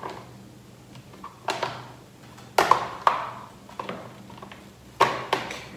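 Handling noise from a Black+Decker Quiet Blender's plastic motor base as its power cord is unwound: a few sharp plastic knocks and rattles, the loudest about two and a half seconds in and again near the end.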